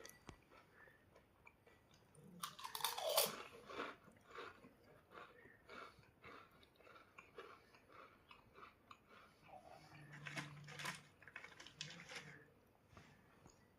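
A person biting and chewing crunchy crisps close to the microphone, with many short crunches and a louder run of crunching about two and a half seconds in.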